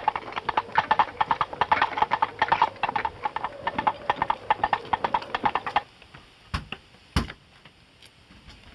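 A rapid, even run of hollow clopping knocks, many a second, like hooves at a trot, which stops abruptly about six seconds in. Two sharp single knocks follow shortly after.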